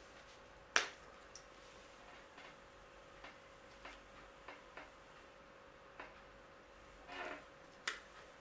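Scattered light clicks and taps from a plastic squeeze bottle of Mod Podge being handled and squeezed over a sheet of paper. The sharpest click comes about a second in, with a faint steady hum underneath.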